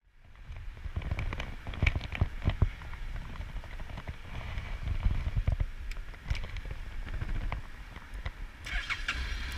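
Irregular low bumps, knocks and rubbing from a chest-mounted camera as the rider moves in a leather jacket and takes hold of a motorcycle's handlebars.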